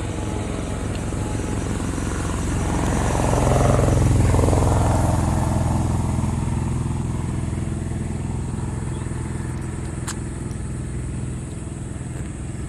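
Engine drone of a passing motor, swelling to its loudest about four seconds in and then slowly fading. A single sharp click near ten seconds in.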